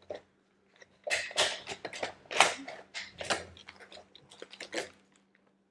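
Close, irregular crinkling and crunching of a snack being handled and eaten, a string of sharp crackles over about four seconds that stops about a second before the end.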